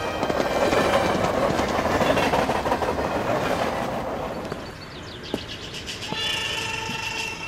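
Passenger train running, heard from inside the carriage as a steady rushing rumble that fades out about four and a half seconds in. A few held tones come in near the end.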